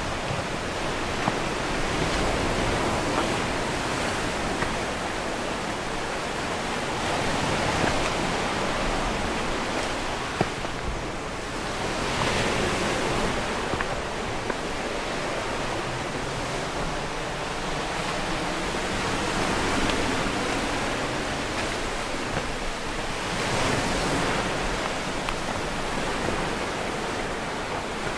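Sea surf washing against the shore: a steady rush of water that swells and eases every few seconds, with a few faint sharp taps.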